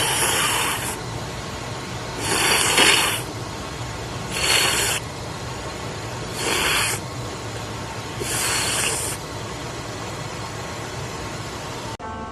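Five hissing rushes of air, each about a second long and about two seconds apart, over a steady background hiss.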